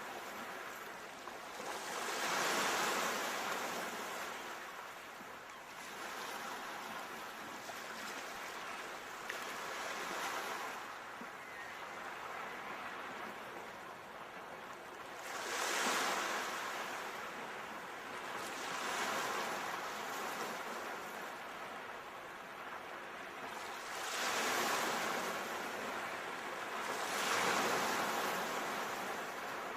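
Ocean waves breaking on a shore, a steady rushing surf that swells and falls back every few seconds, with the biggest surge about midway through.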